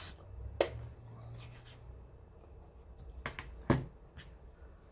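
Plastic Stampin' Up ink pad being handled and its hinged lid opened on a craft table: three sharp clicks and taps, the loudest near the end, with a soft rustle between.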